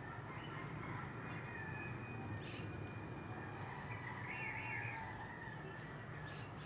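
Faint evening outdoor ambience: insects calling in a steady, evenly repeating pulse over a low background hum, with birds chirping briefly, most clearly a little past the middle.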